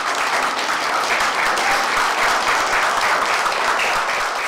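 A group of children and adults applauding, the clapping falling into a steady rhythm of about four claps a second.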